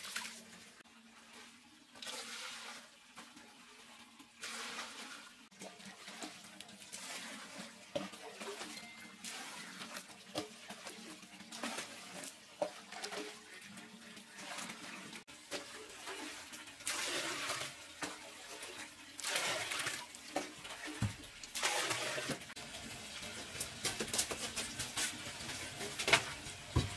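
Water pouring and splashing in short spells of a second or two, more often in the second half, with scattered knocks and clinks of pots and utensils.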